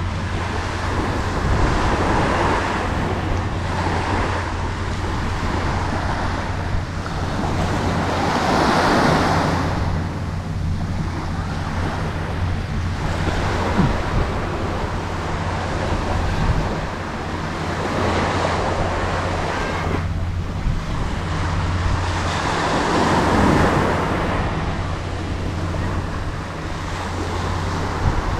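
Surf breaking and washing up the shore, swelling and easing every few seconds, over a steady low rumble.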